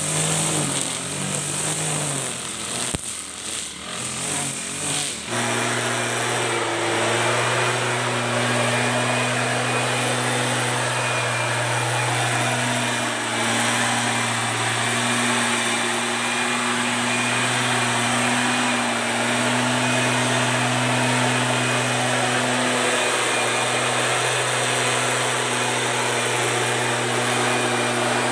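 A GX35-type four-stroke brush cutter engine running while trimming grass, its pitch wavering. About five seconds in the sound switches to a Stihl backpack leaf blower engine running at a steady high throttle, with small dips in speed now and then.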